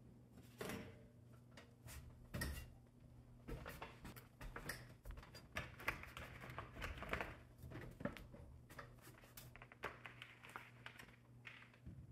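Cardboard-framed HVAC air filters being pulled from and handled at a metal ceiling return-air grille: scattered clicks, taps and rustling scrapes, over a faint steady low hum.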